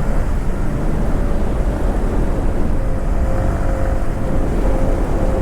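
Steady ride noise from a Yamaha MT-15 at speed: a rush of wind over the microphone with the single-cylinder engine running as a faint steady hum underneath.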